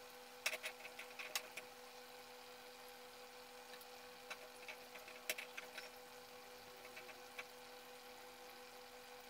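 Breadcrumb-coated cutlets shallow-frying in oil on low heat: a faint sizzle with scattered soft crackles and pops, bunched near the start and again around the middle, over a steady faint hum.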